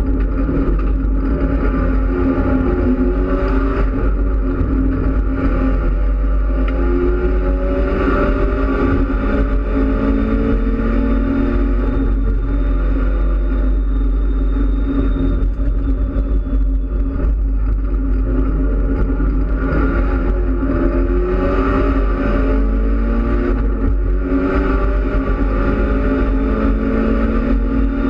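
Mitsubishi Lancer Evolution X race car's turbocharged four-cylinder engine heard from inside the cabin at racing speed, its pitch climbing repeatedly and dropping back at each gear change, over a steady low rumble.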